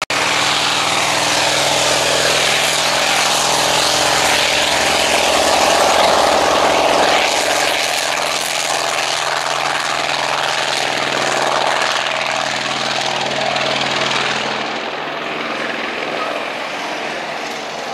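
Douglas A-1 Skyraider's 18-cylinder twin-row radial engine running at full power with a heavy propeller roar as the plane makes its take-off run. The sound is loudest as the plane passes close and fades as it climbs away near the end.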